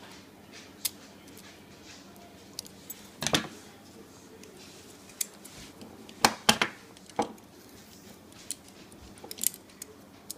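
Scissors snipping through thin aluminium cut from a drink can, making a feeler shim: separate sharp snips at irregular intervals, with a short cluster about a third of the way in and the loudest pair a little past the middle.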